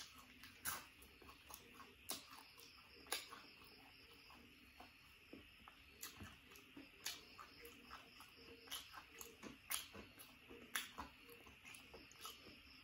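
Close-up mouth sounds of eating fried food: irregular crisp bites and chewing clicks, roughly one or two a second.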